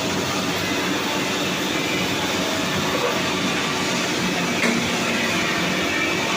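Single rip saw machine running with a steady, even mechanical noise.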